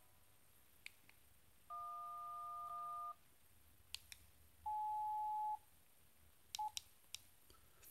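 LG flip phone's keypad tone for the 1 key, a steady two-note tone held for over a second to speed-dial voicemail, followed by a single steady beep of about a second and two short beeps near the end, with faint key clicks between. The phone has no service, so the voicemail call does not go through.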